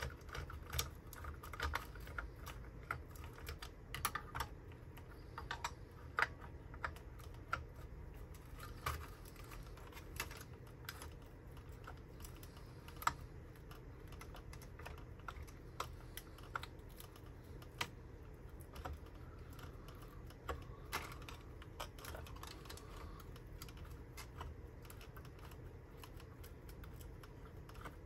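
Irregular light clicks and taps, unevenly spaced, with a few sharper ones standing out, over a faint steady low hum.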